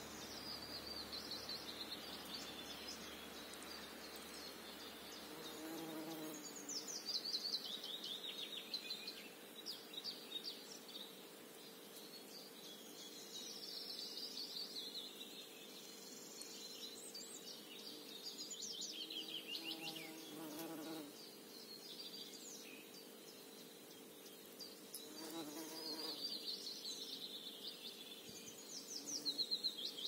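A songbird singing short, fast, descending trilled phrases about every six seconds, with insects buzzing past a few times over a steady low hum.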